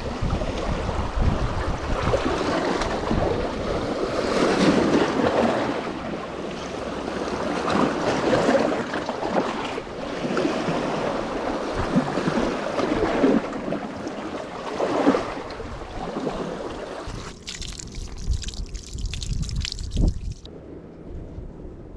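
Waves washing on a beach in repeated swells, with wind rumbling on the microphone; the sound cuts off abruptly near the end.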